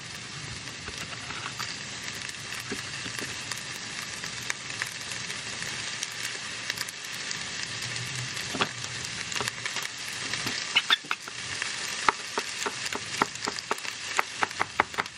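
Chef's knife on a plastic cutting board slicing a jalapeño: a run of quick, sharp chopping taps, two or three a second, in the last few seconds. Underneath runs a steady sizzling hiss.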